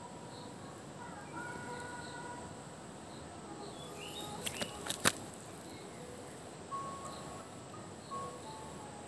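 Outdoor ambience: a steady high insect drone with short whistled bird calls scattered throughout. A few sharp clicks come about four to five seconds in, the last the loudest.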